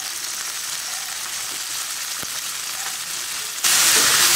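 Cauliflower florets, chopped onion and green chillies sizzling in hot oil in a frying pan. About three and a half seconds in, the sizzle turns suddenly louder as a wooden spatula stirs them.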